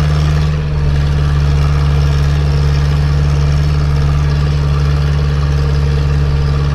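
Zetor 7045 tractor's four-cylinder diesel engine running steadily as the tractor drives along, heard from the cab, with a brief dip about half a second in before it settles at a slightly lower note.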